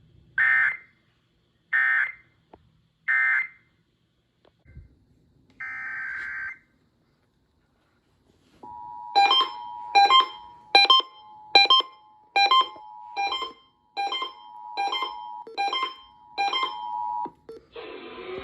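Emergency Alert System data tones: three short buzzy data bursts, the end-of-message code, then a longer burst a few seconds later. About halfway through, the two-tone EAS attention signal sounds steadily for about nine seconds, with a sharp beep repeating about every 0.8 s over it.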